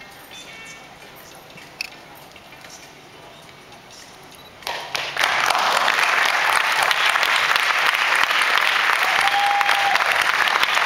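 Audience applause in a hall breaking out suddenly about halfway through and carrying on loud and steady, after a few seconds of quiet crowd murmur.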